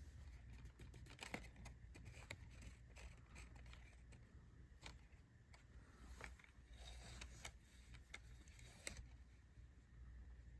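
Faint handling noises: scattered small clicks, taps and rustles over a low steady hum.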